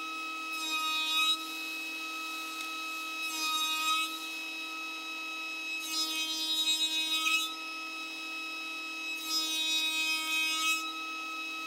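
A bench-mounted power woodworking machine's motor running steadily with a whine, with four rasping spells as wooden boards are fed through under its drum, each lasting about one to one and a half seconds.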